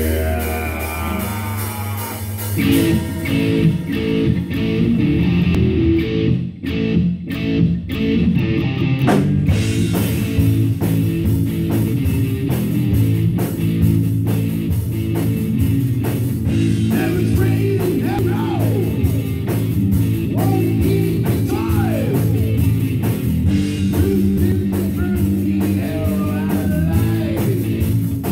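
Rock music with guitar and drums. A held opening gives way to the full band about two and a half seconds in; it drops out briefly around seven seconds, then plays on in full from about ten seconds in.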